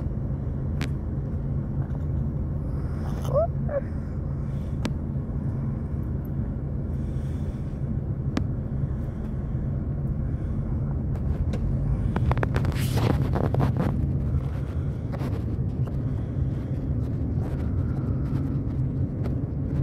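Steady low rumble of a car heard from inside the cabin, engine and road noise together. Scattered light clicks run through it, with a louder rustling patch about twelve seconds in.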